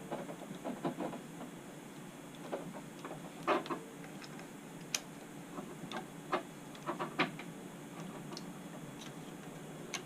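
Small screws being run down by hand into an RC helicopter's tail assembly: faint, irregular light clicks and taps from the driver and small parts, with a slightly louder cluster about a third of the way in.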